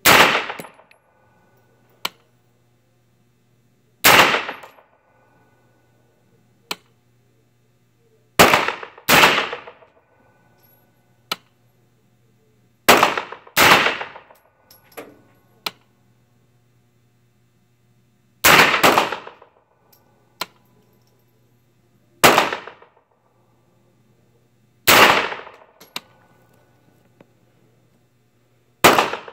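PSA 9mm AR pistol firing slow single shots, twice in quick pairs, about a dozen in all. Each crack rings out in the reverberation of an indoor range. Fainter sharp cracks fall between the shots, and a steady low hum runs underneath.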